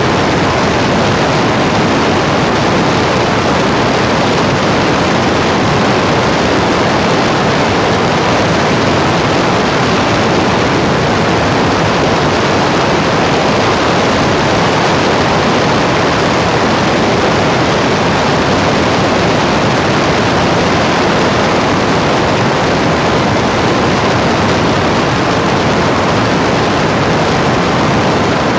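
Loud, steady rushing noise like static, unchanging throughout, with a faint steady tone in it and no rhythm or breaks.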